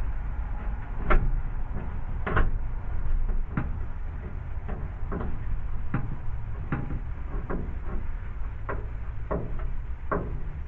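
Irregular clicks and knocks of a light fixture being handled and fastened onto an electrical box, over a steady low rumble.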